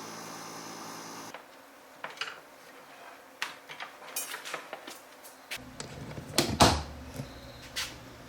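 A steady hum that cuts off about a second in, then a run of small clicks, taps and knocks of hard objects being handled, with one louder knock near the end.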